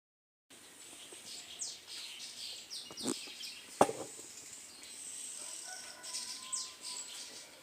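Birds chirping in the background: many short, falling high-pitched calls, with a couple of sharp clicks or knocks in the middle, the louder one at about four seconds.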